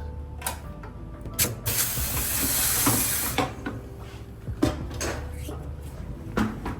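A burst of air hissing for about a second and a half, with several sharp knocks and clicks before and after it over a steady low hum.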